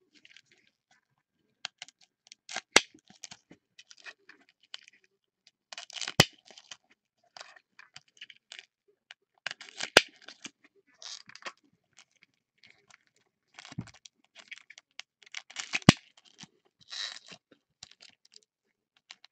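Foil wrappers of Bowman Chrome football card packs crinkling and tearing in gloved hands, in short irregular bursts, with four sharp clicks spread through.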